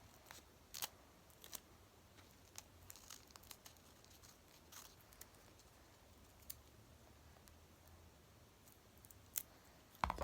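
Scissors snipping faintly and irregularly through tape-covered paper, trimming off the excess: a scatter of soft short clicks.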